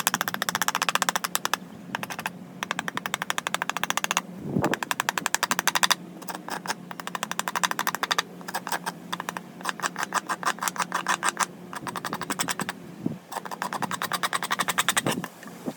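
Rapid, evenly spaced clicking in runs of a second or two with short breaks, over a low steady hum.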